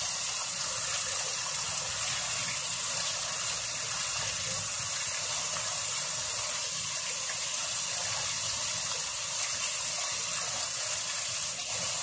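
Kitchen tap running steadily into a stainless steel sink, the stream splashing over a whole raw chicken as it is rinsed and handled under the water.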